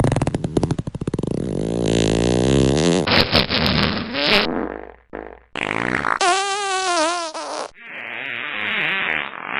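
A string of fart sounds spliced one after another. There are fast sputtering flutters, buzzy pitched ones that slide up and down, and a long warbling one past the middle.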